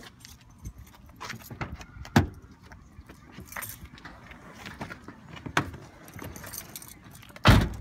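Car keys jangling and clicking as they are handled at the ignition of a Nissan 350Z, with scattered light knocks. A single loud thump comes near the end.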